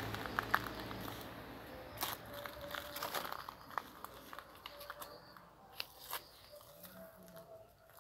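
Footsteps crunching lightly on gravel, with scattered small crackles and clicks, louder in the first two seconds and quieter after.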